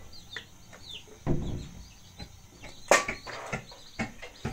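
Chickens clucking and peeping in short high calls that fall in pitch. There is a dull thump about a second in and a sharp knock near the middle, the loudest sound.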